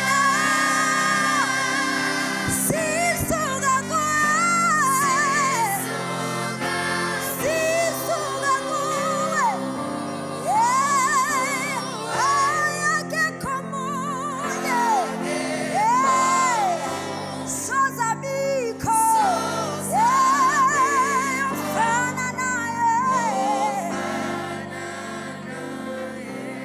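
Gospel music with a singing voice carrying a slow, ornamented melody over sustained chords, fading out near the end.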